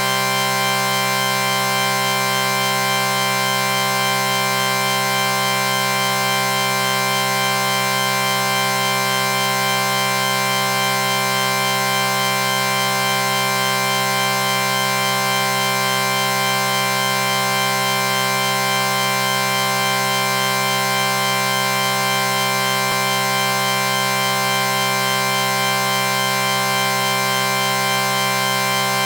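A steady electronic chord: many tones sound together as one unbroken drone, with no change in pitch or loudness.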